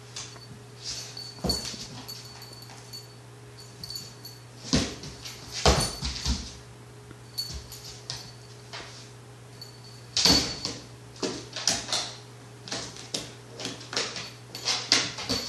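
German Shepherd puppy playing with a tennis ball and a Wubba toy on hard flooring: irregular knocks, bumps and clatter as she swats, pounces and dribbles them, with the loudest knocks about five, six and ten seconds in.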